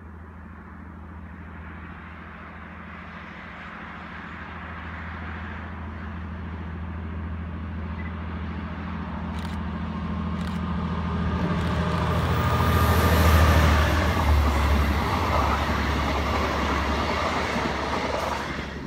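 Diesel-hauled passenger train approaching and passing close by. A steady low engine drone grows louder as it nears, loudest about two-thirds of the way through. Wheel and rail noise swells as the coaches go past.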